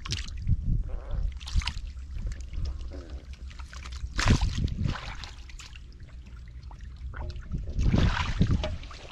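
Hands splashing and sloshing through shallow muddy water while groping for catfish, in several irregular bursts, the loudest about four seconds in and again near the end.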